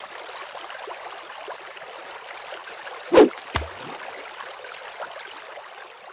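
Steady rush of running water like a flowing stream, with two brief sharp sounds about half a second apart a little past halfway; the first is the louder.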